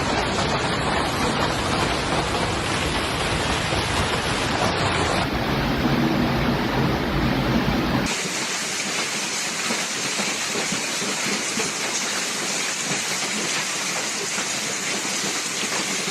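Hailstorm: a steady downpour of hail and heavy rain pelting down, with the sound changing abruptly twice as the footage cuts between clips. There is a faint low hum in the middle section.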